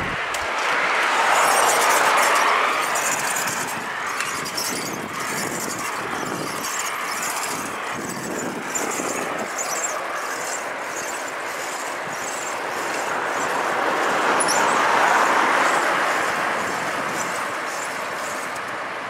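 Bicycle riding along a paved street, heard from the moving bike: a steady rush of tyre, road and wind noise that swells about two seconds in and again near the end, with a light rattle from the bike.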